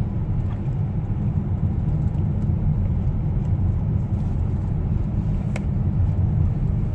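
Steady low road and engine rumble of a moving car, heard from inside the cabin, with one faint click about two-thirds of the way through.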